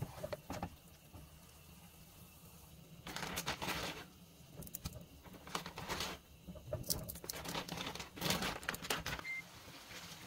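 Irregular bursts of rustling and crinkling, with a few sharp clicks near the start.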